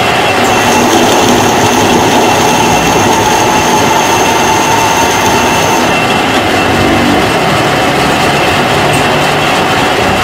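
Metal lathe running with a boring bar cutting into a spinning metal rim plate: a loud, steady machining noise, with a thin high whistle from the cut from about half a second in until about six seconds in.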